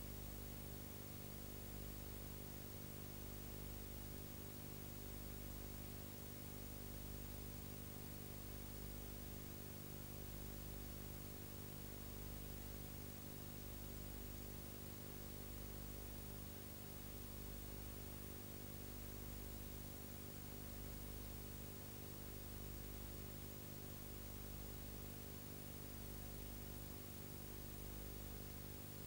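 Faint, steady electrical hum with a hiss over it, unchanging throughout: the noise floor of a blank recording with no programme sound.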